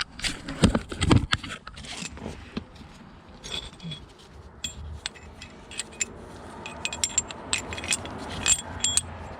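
Small metal pieces of a caliper piston compression tool kit clinking and clicking as they are handled, with a few heavier knocks in the first second and a half.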